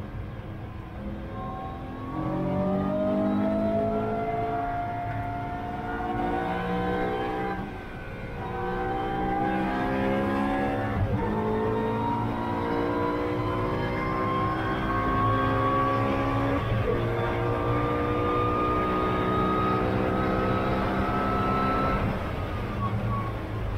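A race car's engine heard from inside the cockpit, accelerating hard at full throttle. Its note rises steeply through each gear, with three upshifts that each drop the pitch. Near the end the driver lifts off the throttle and the note falls away.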